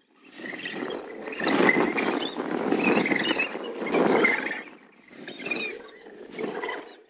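A group of people laughing and shrieking together, rising and falling in waves.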